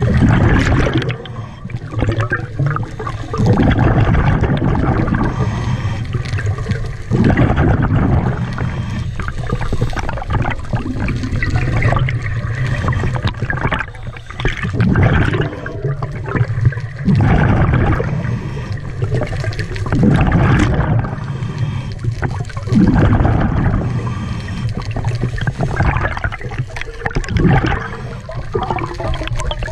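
Scuba diver breathing through a regulator underwater: surges of exhaled bubbles gurgling and rushing past every three to four seconds, with quieter inhalations between.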